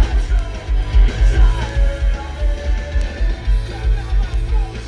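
Music with a steady bass beat playing loud through the Hummer H3's factory amplified Monsoon sound system, fed by an Axxess GMOS-04 adapter, with no ticking or alternator whine heard over it.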